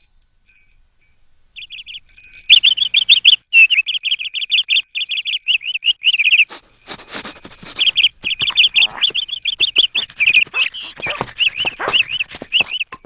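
Rapid strings of high bird-like chirps and twitters, a cartoon bird-voice effect, pausing briefly about halfway through.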